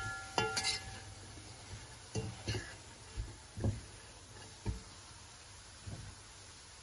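Metal spoon knocking and scraping against a pot while stirring chopped spinach and okra: a few ringing clinks in the first second, then scattered softer knocks.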